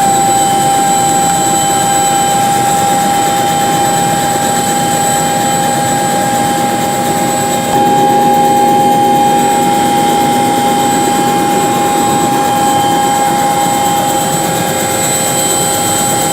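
Helicopter in flight: the turbine runs with a steady high whine over a broad rush of engine and rotor noise, growing a little louder about halfway through.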